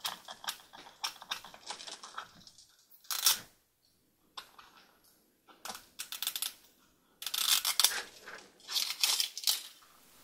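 Plastic toy surprise packaging torn open and handled by hand: irregular crinkling and crackling with small plastic clicks, in clusters with short pauses between them.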